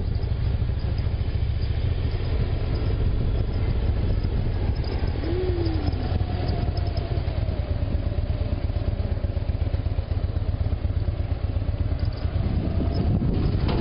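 Harley-Davidson V-twin motorcycle engine running steadily while riding along.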